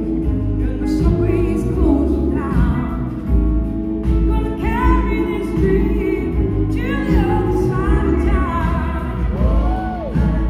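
A live rock-soul band playing a slow song, heard from the audience in a large hall: drums and bass under electric guitar, with lead notes that glide up and down in pitch.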